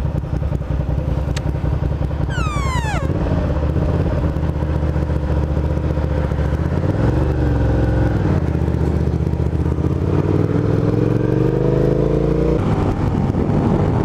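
Suzuki SV650S's 645 cc V-twin engine running at low revs, then climbing steadily in pitch as the motorcycle accelerates, with a gear change near the end. A short falling whistle-like tone sounds about two and a half seconds in.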